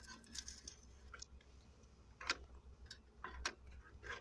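A few scattered small clicks and ticks of hands handling a loose kill-switch wire connection in a pickup's cab, over a low steady hum.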